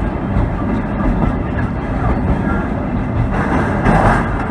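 Sagano Scenic Railway trolley train running, heard from inside a moving car: a steady low rumble of wheels on rail, growing into a louder rush near the end.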